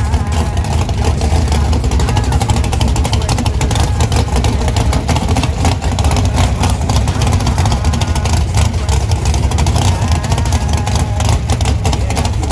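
Camaro drag car's engine idling at close range, a loud, steady, choppy running sound with no clear revs.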